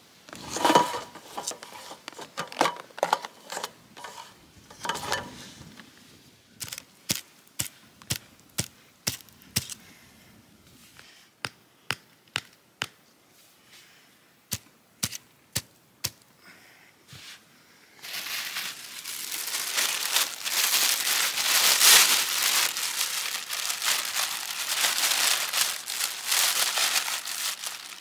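A thin plastic shopping bag crinkling and rustling as it is handled, loud and continuous through roughly the last third. Before it come a run of sharp separate ticks and snaps, about one a second, and at the start some light clattering of plastic containers on a table.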